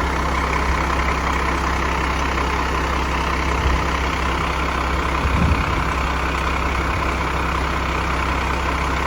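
Garbage truck's diesel engine running steadily at idle, with an exhaust leak.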